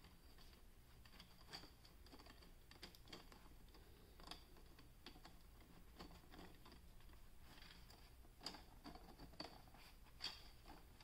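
Faint, irregular clicks and taps of 3D-printed plastic rings being handled and pressed into place as a small armillary sphere is assembled.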